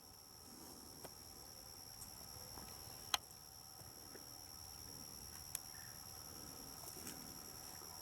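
Steady, high-pitched chirring of insects, crickets, with a few faint sharp clicks about one, three and five and a half seconds in.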